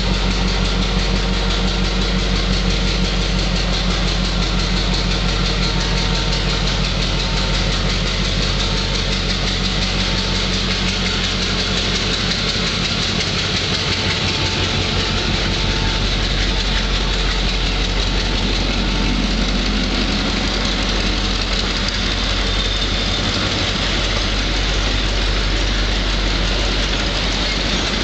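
EMD G8 diesel-electric locomotive BB200 21, built in 1957, pulling a passenger train away and passing close by with its two-stroke EMD 567 diesel engine running. The steady engine note changes about ten seconds in, and the rest is a rumble of the train rolling past.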